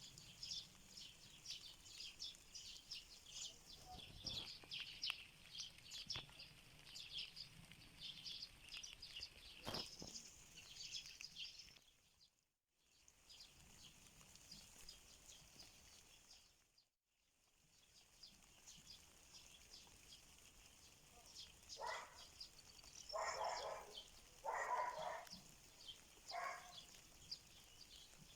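Small birds chirping and twittering busily, a dense chorus of high calls. The sound cuts out twice briefly midway, and near the end four louder, lower-pitched animal calls come at intervals of a second or two, which the tagger takes for livestock such as a goat.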